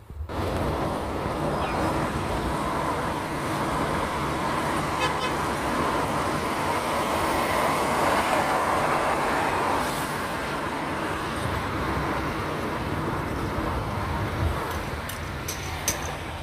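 Steady road and engine noise of a car driving through city traffic, heard from inside the cabin, with a few sharp clicks near the end.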